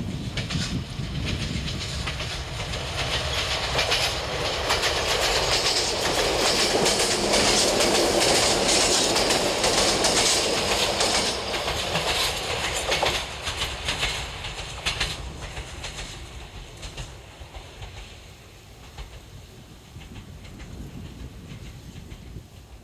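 A three-car set of Tsugaru Railway diesel railcars passing, with wheels clicking rapidly over the rail joints. The sound builds to its loudest about halfway through, then fades away over the last third.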